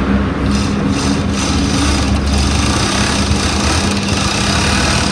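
Yamata four-thread industrial overlock machine (serger) running steadily, stitching an overlocked edge along fabric: a test seam after the stitch spacing was adjusted.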